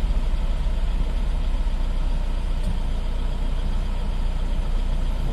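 Logging truck's diesel engine running steadily, a low, even engine sound with no change in pace.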